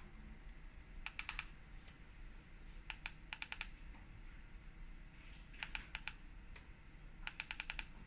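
The switch button of a Maytech MTSKR1905WF waterproof remote is clicked quickly several times in a row. There are four short bursts of clicks a couple of seconds apart, with a single click between some of them, as the remote switches the lights on and off.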